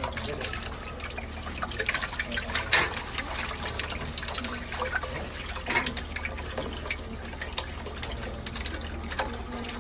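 Raw eggs pouring in a thick stream from a steel bowl into a steel mixer bowl, splashing and spattering onto the wire whisk. A steady low hum runs underneath.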